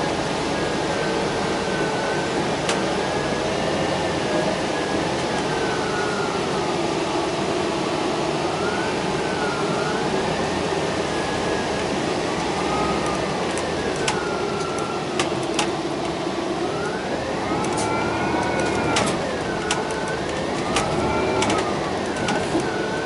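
Cabin noise of a New Flyer XD60 articulated bus under way, with a whine that rises and falls in pitch several times and scattered clicks and rattles in the second half.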